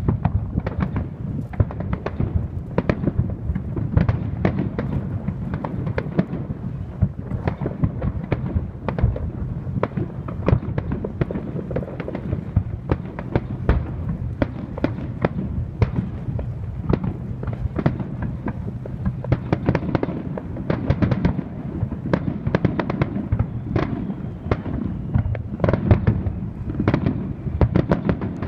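Fireworks going off in a rapid, continuous barrage: many sharp bangs and crackles a second over a low rumble.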